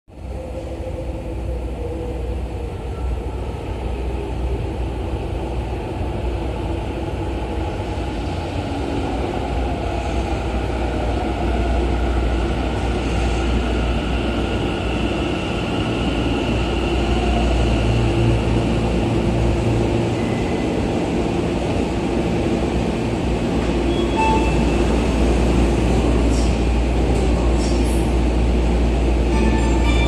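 Tokyo Metro 10000 series subway train running in through the tunnel into an underground station, its running noise growing steadily louder as it pulls in and brakes to a stop at the platform.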